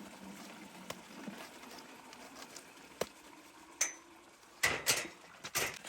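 Metal cooking pot and utensils clinking: a few sharp clinks, one ringing briefly, then two louder bursts of clattering near the end.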